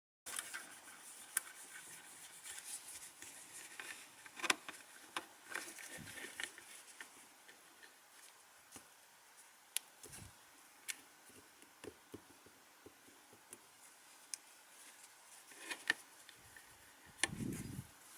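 Faint handling noises from phone repair work: scattered small sharp clicks and soft rubbing of plastic phone parts and tools, with a couple of dull knocks near the end.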